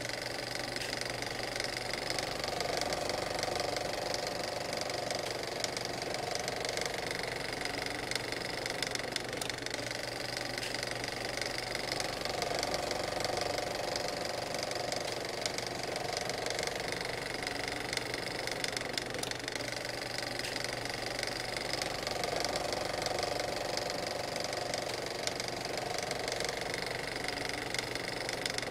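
Antique Ford's flathead V8 engine idling steadily.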